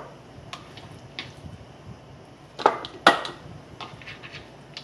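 Raw chicken pieces being packed by hand into glass canning jars: soft scattered taps, then two sharper glass clinks a little past the middle, the second ringing briefly.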